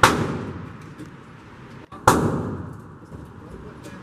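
Two .44 Magnum shots from a Smith & Wesson Model 329PD revolver, about two seconds apart. Each is a sharp crack followed by a long echoing tail off the walls of an indoor range.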